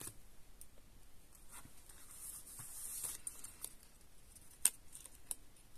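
Small paper pieces being handled and pressed onto a card on a craft mat: a soft rustle and a few light taps, with one sharper click about three-quarters of the way through.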